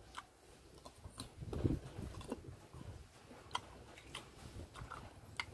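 Close-up mouth sounds of a person biting and chewing a piece of raw fruit, with irregular wet clicks and smacks.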